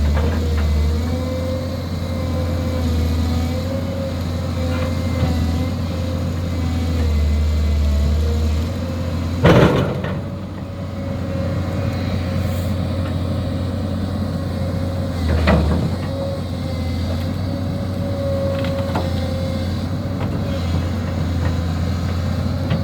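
The engine of a heavy machine running steadily at a low pitch, with two loud knocks, the first about nine and a half seconds in and a smaller one about six seconds later.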